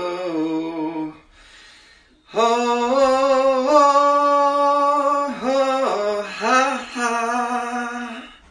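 A man singing long held notes without words, his voice breaking off for a brief pause about a second in, then swooping up and down through a few short slides before settling on a last held note that fades out near the end.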